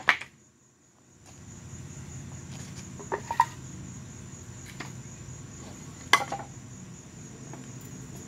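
Old wooden boards knocking against each other as they are handled and stacked: a few sharp knocks, just after the start, around three seconds and around six seconds in. Under them, a steady high chirring of crickets.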